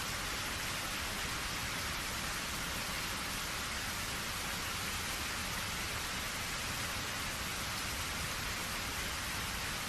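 Steady rain falling, an even hiss of drops on surfaces with no let-up.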